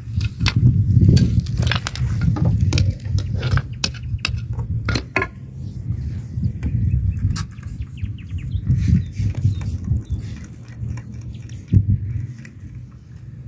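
Pebbles and gravel clicking and knocking together as a hand rummages through loose stones and picks one up. The clicks come thick and irregular for the first few seconds, then sparser, with one sharper knock near the end, over a steady low rumble.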